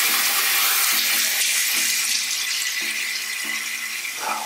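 Bathroom sink tap running steadily while a face is washed with handfuls of water to rinse off a face mask.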